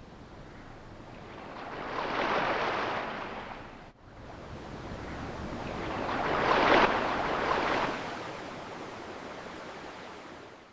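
Ocean surf: waves swelling and breaking on a shore twice, the second louder, then washing back.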